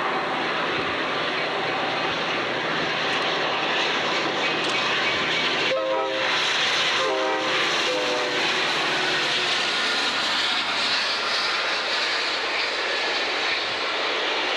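Amtrak passenger train of Superliner cars rushing past at speed, a steady roar of wheels and air, with the locomotive's horn sounding in two blasts about six seconds in.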